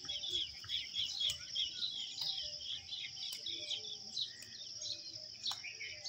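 Many birds chirping over a steady high insect drone, with a few sharp clicks scattered through.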